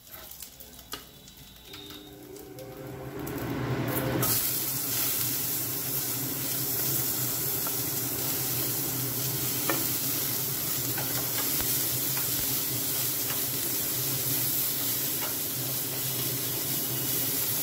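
Broccoli florets and potato strips hitting hot oil in a kadai: sizzling starts suddenly about four seconds in and then runs on steadily as a wooden spatula stirs the vegetables, with a few light taps.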